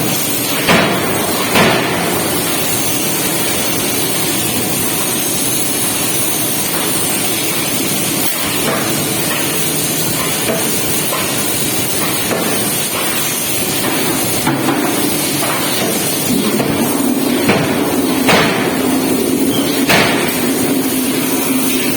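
Hydraulic forging machine working heated metal: a steady machine din with irregular sharp metallic knocks. A steady low hum sets in about two-thirds of the way through.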